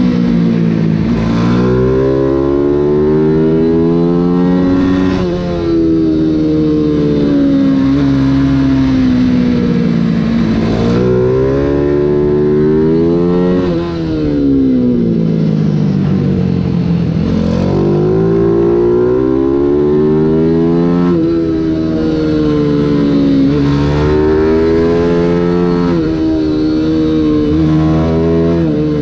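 A single-cylinder 140 cc Mini GP race bike engine heard from on board, revving up hard and then dropping in pitch as the throttle closes into the corners, again and again through the lap.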